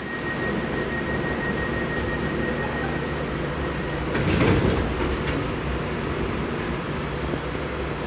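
London Underground train standing at a platform, with a steady low hum filling the station. A thin high tone sounds for the first three seconds, and a brief louder rush comes about four and a half seconds in.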